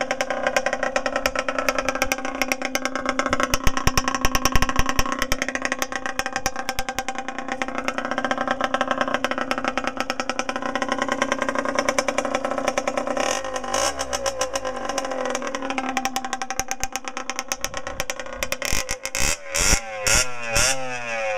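Derbi Senda DRD Racing 50 SM's 50 cc two-stroke single running with its exhaust pipe fitted but no silencer: a steady, rapid idle, then revved in several quick blips that rise and fall near the end.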